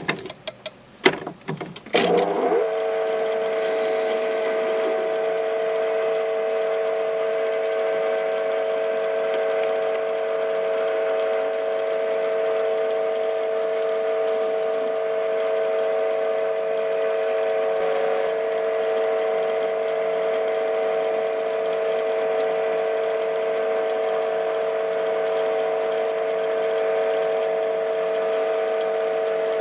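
A few clicks and knocks, then about two seconds in a TV16 benchtop metal lathe starts and runs steadily, a constant hum with a few fixed tones from its motor and gearing, while it faces and then drills a duralumin blank.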